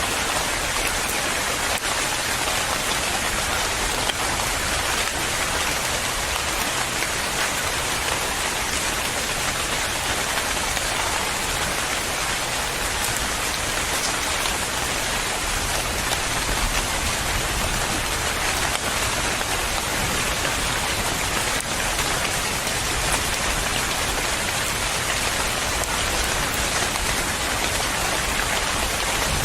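Steady rain falling on a surface, an even hiss with scattered individual drops pattering.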